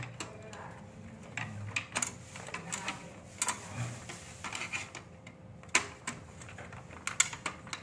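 Irregular light clicks and taps of wires and breaker parts being handled and pushed into a consumer unit during wiring.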